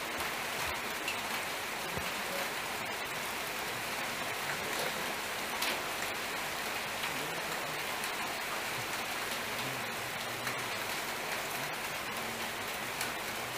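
Steady, even hiss with faint scattered ticks and no speech.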